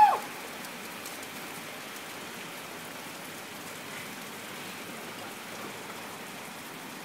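Steady heavy rain falling on pavement and a flooded street. Right at the start comes a single short, high-pitched call that rises and falls.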